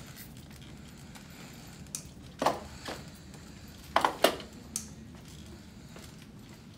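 Aluminium front-wheeled walker clacking on a hard floor as it is moved along step by step: a handful of sharp knocks between about two and five seconds in, the loudest pair around four seconds in, over a low steady room hum.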